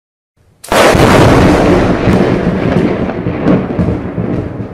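Thunderclap sound effect: a sudden loud crash under a second in, then a rumble with sharp crackles that slowly fades.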